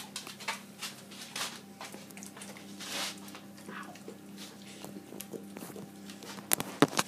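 Labrador licking and smacking peanut butter off fingers: quick wet licks repeating a few times a second. Two sharp clicks near the end stand out above the licking.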